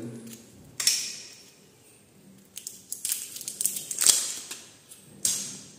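Blue PVC insulating tape being pulled off its roll in several short, hissy rasps, mixed with the rustle of electrical wires being handled in a metal switch box; the bursts come about a second in, as a cluster in the middle, and once more near the end.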